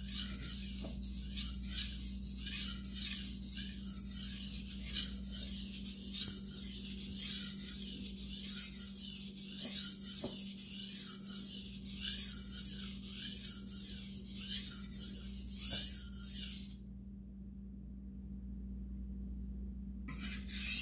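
Shun Hikari chef's knife with an SG2 steel blade stroked back and forth on a wet 1000-grit whetstone, giving a steady run of raspy scraping strokes, about two a second. The strokes stop for about three seconds near the end, then start again.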